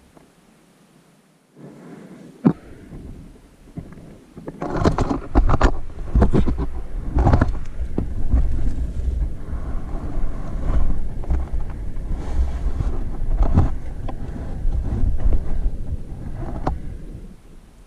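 A person crawling through a tight rock crawlway: clothing and gloves scraping and shuffling over rock and gritty dirt, with many small knocks and low rumbling handling noise. It is fairly quiet for the first couple of seconds apart from one sharp click, and the scraping starts in earnest about four to five seconds in.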